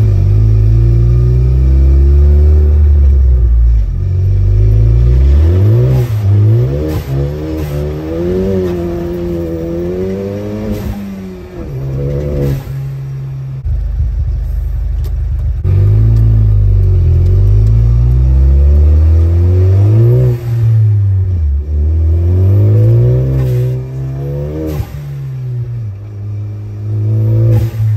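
Ford EcoBoost turbocharged engine pulling hard through several bursts of acceleration, its note climbing and dropping back at each shift or lift-off, with sharp turbo blow-off valve releases at those moments. Heard from inside the car.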